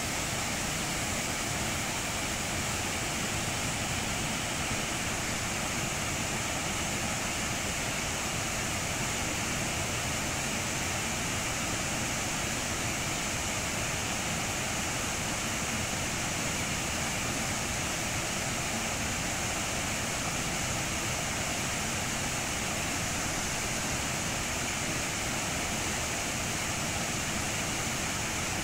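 Rushing water of a rocky stream pouring over rapids and a small waterfall: a steady, unbroken rush.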